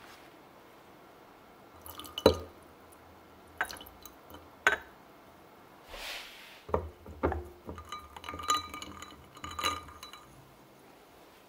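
Ice and glassware clinking as iced lemonade is assembled, with a little liquid trickling. A string of separate clinks, the loudest about two seconds in, and several clinks near the end that leave the glass ringing briefly.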